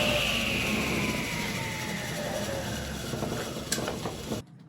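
Table saw running, its whine falling slowly and steadily in pitch, with a few sharp clicks late on; the sound cuts off abruptly shortly before the end.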